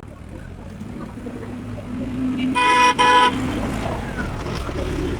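A vehicle horn sounds twice in quick succession, two short toots back to back, over the low rumble of a motor vehicle.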